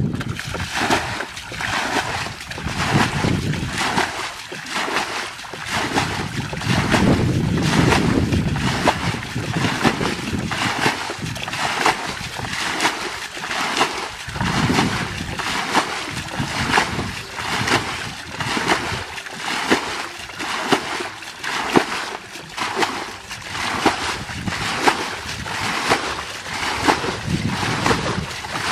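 Water splashing in a steady rhythm as a person bails a muddy ditch by hand with a bucket, scooping and flinging water a little more than once a second.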